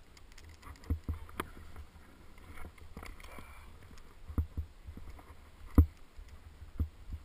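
Ski touring uphill in a skin track: skis sliding through snow and poles planting, heard as irregular scuffs and knocks with a low rumble of camera handling noise. The loudest knock comes near the end.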